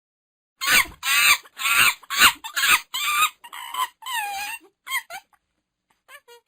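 Monkey calling: a rapid run of about ten harsh, pitched calls that grow weaker, then a few faint quick calls near the end.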